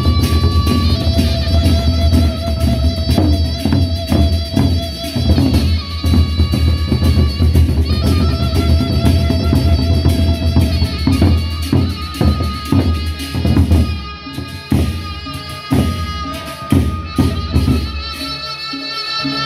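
Sasak gendang beleq ensemble playing: large double-headed barrel drums beaten with sticks and hands in a dense rhythm, with cymbals and held pitched notes above. The drumming thins out and gets quieter in the last few seconds.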